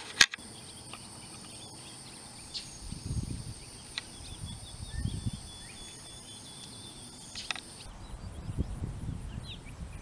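Summer outdoor ambience: insects droning steadily at a high pitch, with low gusts of wind buffeting the microphone now and then. The insect drone cuts off sharply about three-quarters of the way through.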